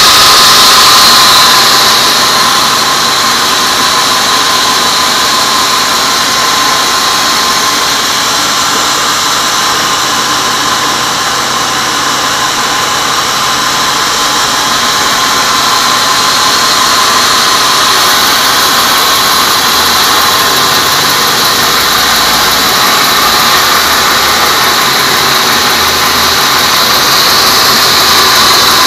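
Band sawmill blade cutting lengthwise through a teak beam: a loud, steady whine over hiss. It eases slightly after the first couple of seconds and swells again near the end.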